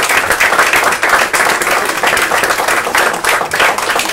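Audience applauding, many hands clapping steadily at the end of a poem reading.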